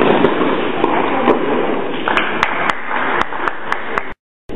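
Tennis balls struck by rackets during a rally on an indoor court, sharp knocks over a steady hall murmur. In the second half comes a quick run of sharp taps, about four a second. The sound cuts out briefly near the end.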